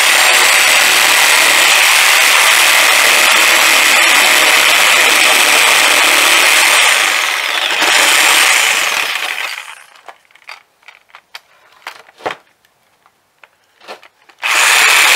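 Corded DeWalt reciprocating saw cutting through marine plywood. It runs steadily for about seven seconds, briefly winds down and picks up again, then stops about ten seconds in. A few light knocks follow, and the saw starts cutting again near the end.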